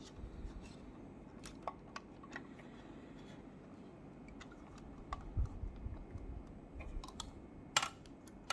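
Light, scattered clicks and taps of a 1/18 scale diecast model car being handled and turned over in the hands, with a few dull bumps about five seconds in and a louder click near the end.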